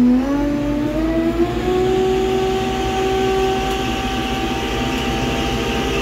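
Excavator engine running under load with a machine whine that rises in pitch over the first two seconds and then holds steady, over a continuous low rumble.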